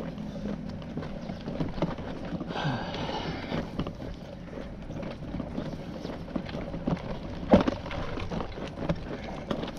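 Footsteps walking on a paved sidewalk, with a brief rush of noise about three seconds in and one sharp knock about seven and a half seconds in.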